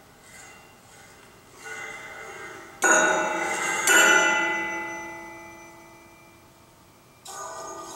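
Bent metal rods of a percussion sculpture struck with mallets. Soft strokes at first, then two loud strikes about a second apart whose ringing, with many overlapping metallic tones, fades slowly over about three seconds. A new run of strokes comes near the end.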